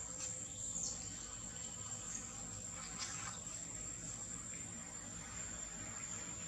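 Insects droning in the trees: one steady, high, even tone over a faint background hiss. A few faint rustles come about one and three seconds in.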